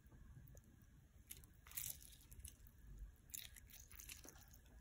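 Faint, short crackling rustles, about three in all, as fingers work spice into a raw, scored angelfish in a dish.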